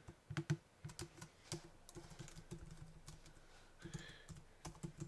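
Typing on a computer keyboard: an irregular run of soft key clicks as a line of text is typed.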